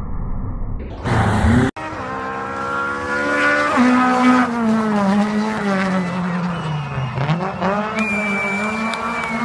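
Car engine revving hard under acceleration, its pitch climbing and then dropping sharply at a gear change about four seconds in, falling away and then rising again near the end. Before that, a low rumble and a short loud rush of noise end in an abrupt cut.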